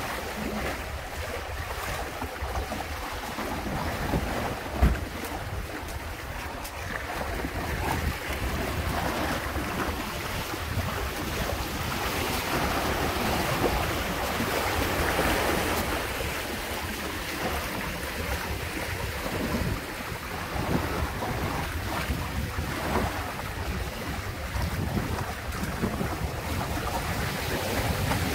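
Water rushing and splashing along the hulls of a Windrider 17 trimaran sailing fast through choppy waves, with wind buffeting the microphone as a low rumble. A single thump about five seconds in.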